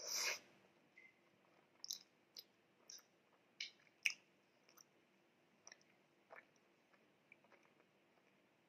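Close-miked mouth sounds of someone eating soft food: a short wet smack of lips on fingers right at the start, then soft sticky chewing clicks and smacks, several close together a few seconds in, growing sparser after.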